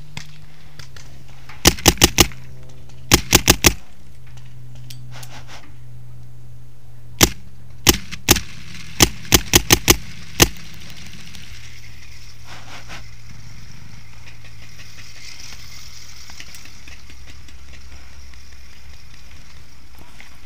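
Paintball marker shots, sharp cracks fired in quick strings: two rapid strings of four near the start, then scattered single shots and a fast run of about five.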